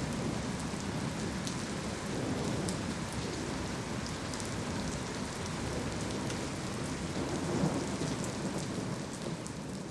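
Heavy rain pouring steadily, with sharp drops ticking on nearby surfaces, under a low rumble of thunder that swells about seven and a half seconds in.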